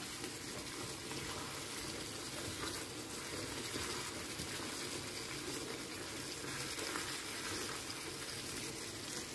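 Thick sauce simmering in a frying pan as a spatula stirs chicken pieces through it: a low, steady wet bubbling.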